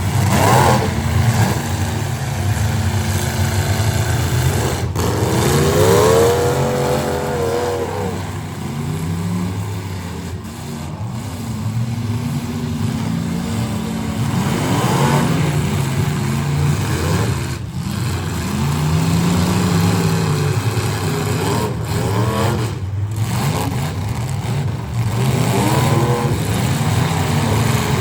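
Several full-size demolition derby cars' engines running together, revved up and down again and again over a steady engine drone.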